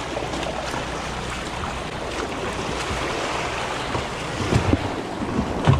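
Boat under way at sea: a steady rush of wind on the microphone and moving water over a low rumble, with a few louder low thumps in the second half.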